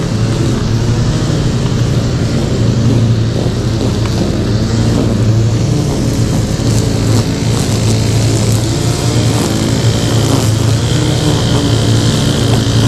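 Zero-turn lawn mower engine running steadily, a loud even hum. A thin high whine joins it about ten seconds in.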